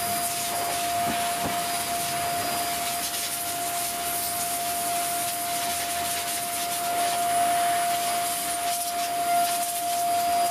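Vacuum cleaner running in blower mode: a steady rush of air with a constant whine, blowing dust out of an old desktop PC's case.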